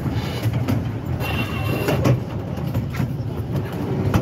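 Miniature railway train running along its track, heard from on board: a steady low rumble of wheels on rail with a few sharp clicks, about three seconds in and near the end.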